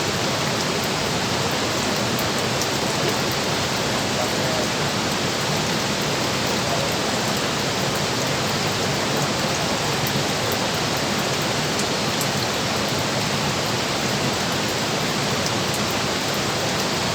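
Steady, unbroken hiss of water.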